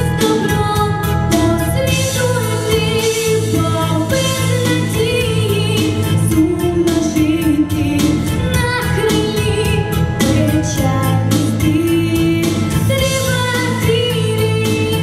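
A girl singing solo into a handheld microphone, held notes with vibrato, over instrumental accompaniment with a steady beat.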